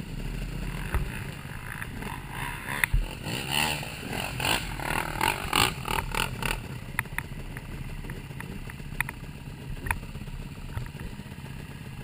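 Off-road motorcycle engine running as the bike is ridden over a rough, muddy trail, with clatter and knocks from the bike over the ground. The noise gets busier and louder for a few seconds in the middle.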